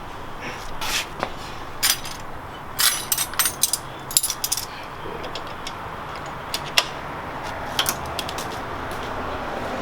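Scattered light metallic clicks and clinks of hand tools being handled against metal, over a steady low hum.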